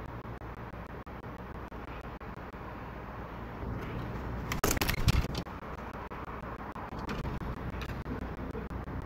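A Steller's jay's bill tapping and knocking on a wooden feeder ledge as it handles food: a quick run of sharp taps about halfway through, then a couple of fainter clicks, over a steady low background rumble.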